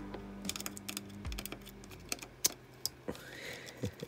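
Small screwdriver turning screws out of a circuit board's screw-terminal block: a run of small, irregular clicks and ticks of metal on metal.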